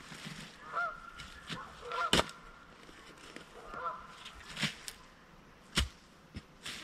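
A shovel blade striking and chopping into the soil, several separate hits with the loudest two about two and six seconds in. Between them a bird gives a few short pitched calls.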